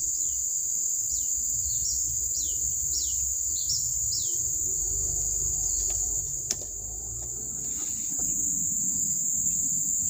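Steady high-pitched insect drone, with a run of about seven short, falling bird chirps over the first four seconds or so. There is one sharp tap about six and a half seconds in.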